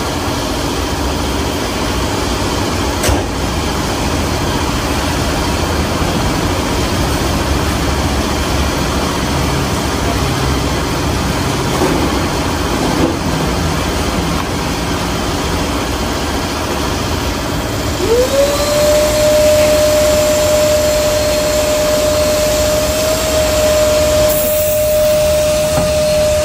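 Machinery running steadily. About two-thirds of the way through, a motor spins up with a quick rising whine and then holds at a steady pitch.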